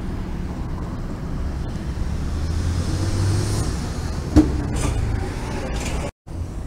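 City bus passing close by on a wet street, its engine rumble building to a peak and easing off, with a sharp click about four seconds in and a couple of short hisses after it. The sound cuts out briefly near the end.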